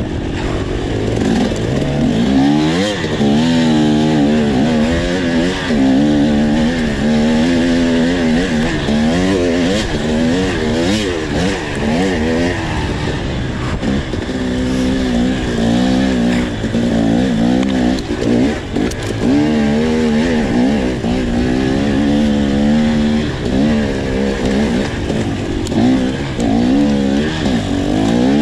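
Off-road dirt bike engine being ridden hard, its revs rising and falling again and again as the throttle is worked and the gears change.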